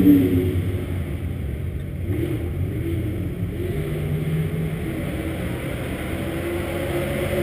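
Dirt late model race car's V8 engine idling with the car standing still; it comes down off a higher, louder note right at the start and then runs at a steadier, quieter idle.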